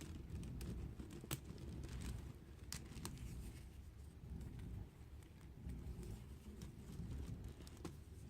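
Hands handling a beaded kandi hood: a few faint clicks of plastic pony beads knocking together, mostly in the first three seconds, over low, muffled handling noise as fabric strips are threaded and knotted.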